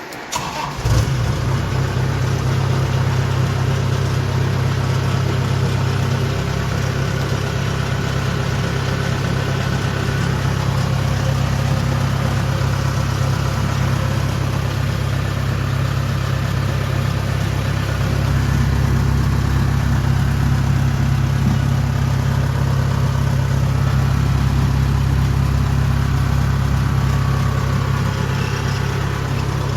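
Kubota DC-70 combine harvester's diesel engine starting about a second in, then running steadily at idle, a little louder past the middle.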